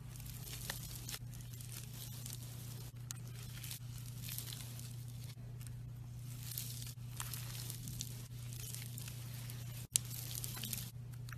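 Slime being pressed and stretched by hand, with a sticky, crackling squish over a steady low hum. The sound breaks off briefly a few times.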